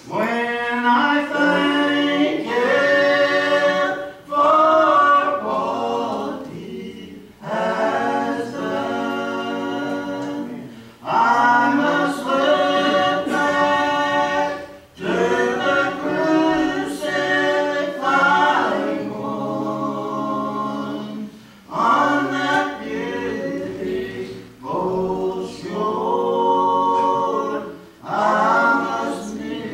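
Unaccompanied gospel singing by a woman and two men in three-part harmony, sung in phrases of a few seconds with short breaks between them.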